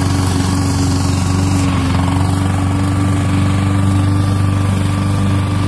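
Petrol walk-behind rotary lawn mower running steadily at a constant throttle as it is pushed across grass, cutting the lawn.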